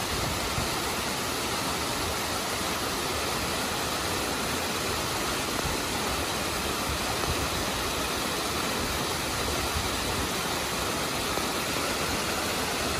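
Mountain waterfall and stream cascading over boulders: a steady rush of water.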